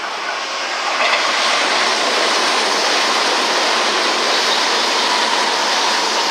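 Tobu 100 series Spacia limited express electric train passing at speed: a loud, steady rush of wheels on rail that swells about a second in as the cars go by.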